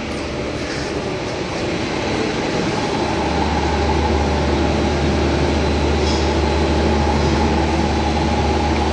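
S-Bahn commuter train running along the platform: a steady rail running noise that grows louder, with a steady low hum that sets in about three seconds in.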